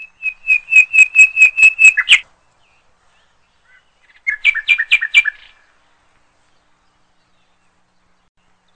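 A bird chirping in two quick runs of repeated high notes: about eight notes in the first two seconds, ending in a quick falling note, then a shorter run of about six notes a couple of seconds later.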